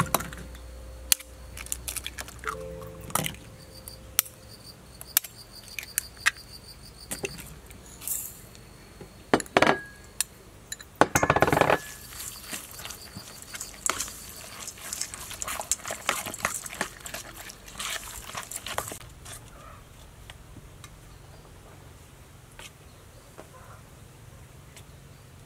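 A metal spoon clinking and scraping against a stainless steel bowl as raw ground pork stuffing is mixed, with the loudest scraping about ten seconds in and the clatter dying away about three-quarters of the way through. Faint insect chirring runs in the background.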